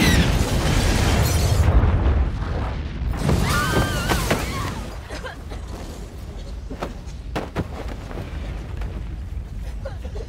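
Film sound of a large house exploding: a deep booming blast with crashing, shattering debris that dies away over about four seconds, followed by quieter background with a few sharp knocks.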